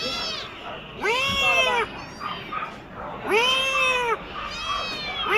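Cat meowing: a string of long, drawn-out meows, about one every two seconds, each rising and then falling in pitch.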